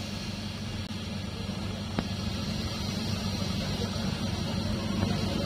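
Servo-driven shrink sleeve label seaming machine running: a steady mechanical hum with a low drone, growing slightly louder, and a single sharp click about two seconds in.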